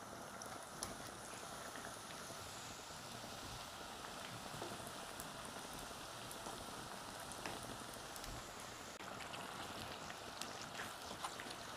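Hot oil sizzling around spring rolls shallow-frying in a pan: a steady hiss with many small crackles and pops.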